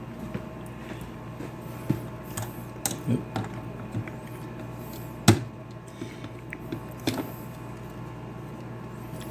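Irregular small plastic clicks and knocks from handling camcorder batteries and their charger, the loudest about five seconds in, over a steady low hum.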